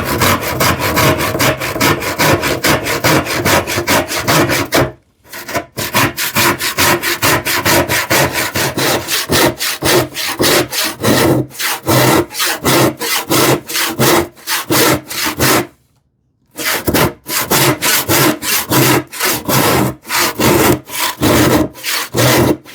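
Hand saw crosscutting a glued-up wooden panel in steady back-and-forth strokes, with two short pauses, about five seconds in and about sixteen seconds in.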